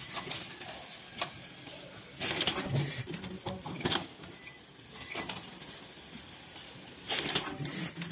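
Cup-mask production machinery running: a steady high hiss with sharp clicks and knocks at irregular intervals, and two brief high-pitched tones, one about three seconds in and one near the end.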